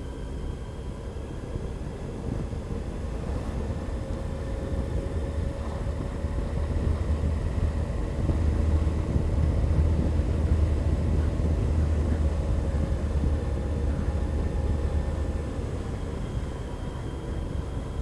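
Sport-touring motorcycle riding along a road, its engine running under a low rumble of wind on the microphone. The rumble swells in the middle and eases toward the end.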